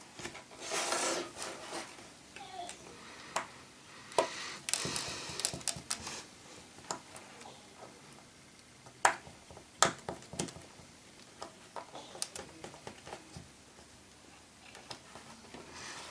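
Small screwdriver driving tiny screws into an iPhone 4's frame: irregular light clicks and short scraping rubs of metal tool on the phone, with a few sharper clicks past the middle.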